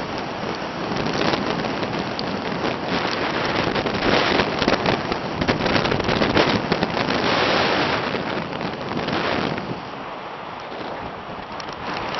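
Wind buffeting the microphone of a camera on a moving mountain bike, a loud rushing noise full of small crackles. It builds up through the middle and eases off near the end.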